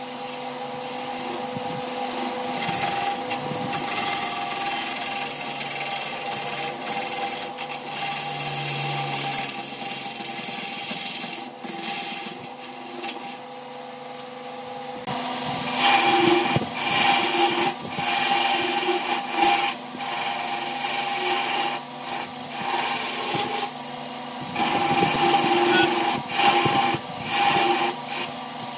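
Wood lathe running with a steady motor hum while a gouge cuts a spinning wooden blank, with a hissing, scraping sound. The cuts come in spells and are loudest in the second half.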